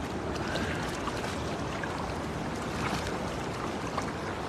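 Shallow river water sloshing and trickling around a wading man as he gathers a wet nylon cast net, water running off the mesh. A steady, even wash with a few faint ticks.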